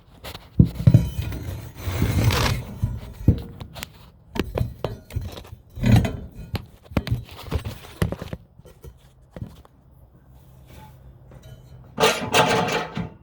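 Metal clinks, knocks and scrapes from working at a mower-deck spindle whose bottom bearing is stuck in its housing. Near the end a quick run of rhythmic rasping strokes begins.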